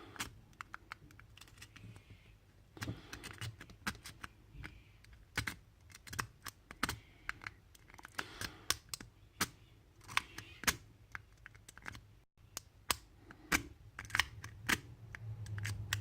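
A metal W rake being worked in and out of the keyway of a cheap discus padlock under heavy tension, giving irregular sharp clicks and light scrapes as the pins are bounced.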